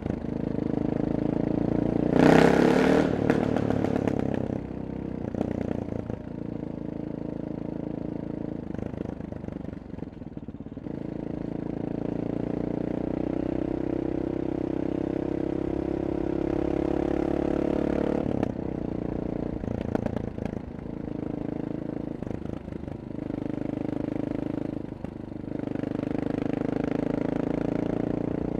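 Honda XR650R's 649 cc single-cylinder four-stroke engine and exhaust pulling through the gears while riding, the revs rising and dropping away between shifts. There is a loud, harsh burst of noise about two seconds in.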